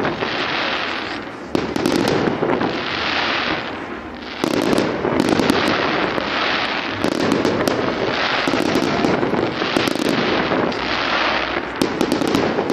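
Fireworks salute: shells going off with sharp bangs, each followed by a wave of dense crackling from the bursting white stars, the waves overlapping about every second or two.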